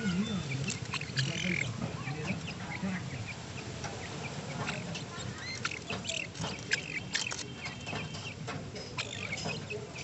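Young grey francolins calling with short high chirps, mixed with scattered ticks. A low, wavering call sounds under them in the first three seconds.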